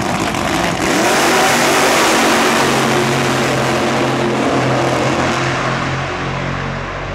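Nostalgia funny car's drag-racing engine launching at full throttle about a second in, loudest just after the launch, then fading as the car pulls away down the strip.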